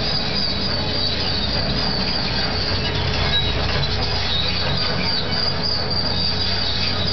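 Caterpillar 330L tracked excavator on the move: a steady diesel engine drone under a high, wavering squeal from its steel tracks.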